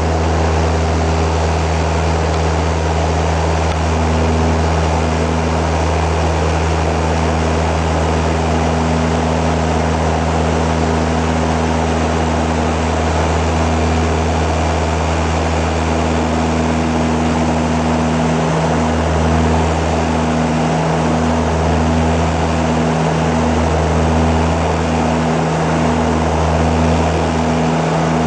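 Passenger-cabin drone of an ATR 72's twin turboprop engines and propellers in flight: a loud, steady hum with several low tones. In the second half the lowest tones swell and fade about every two seconds, the beat of the two propellers turning slightly out of step.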